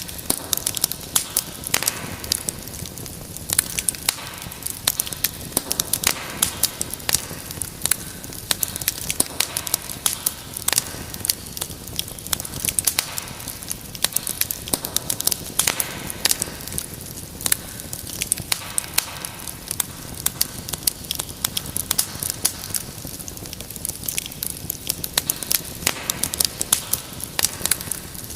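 Wood fire crackling in a fireplace: a steady hiss of burning with many sharp irregular pops and snaps, several a second.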